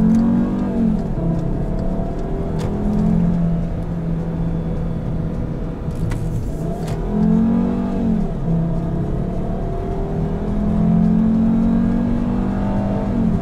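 Volkswagen inline-five engine heard from inside the cabin, pulling hard under acceleration. Its pitch climbs and falls back at each upshift, with the warbling note often called a 'baby V10'.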